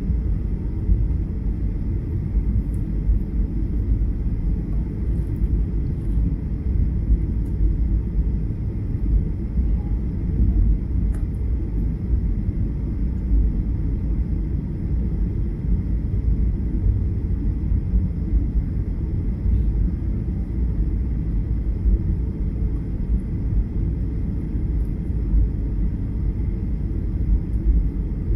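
Steady low rumble of an airliner's jet engines and airflow, heard from inside the passenger cabin, with a faint steady high tone above it.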